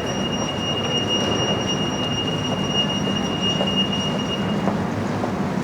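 Busy city street traffic noise with a steady low engine hum, over which a steady high-pitched whine holds and then stops about five seconds in.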